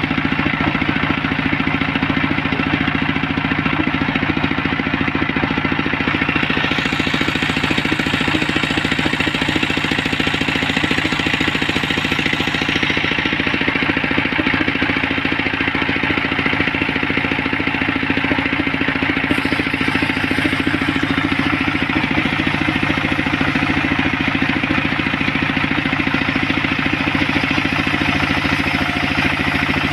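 Homemade engine-driven circular saw bench running steadily as its blade rips coconut wood, a constant engine hum under the dense hiss of the cut. The brighter cutting noise swells and eases a few times as timber is fed through.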